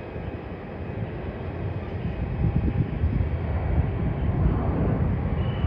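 Jet engines of a landed Skymark Boeing 737-800 rumbling steadily as the airliner slows on the runway after touchdown, growing slightly louder.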